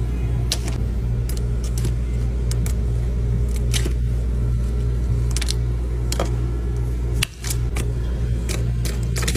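Thin frozen sheets of grape Prime drink cracking and snapping as they are broken and scraped off a frozen steel cold-plate tray, about a dozen sharp cracks at irregular intervals. Under them runs the steady low hum of the cold plate's refrigeration unit.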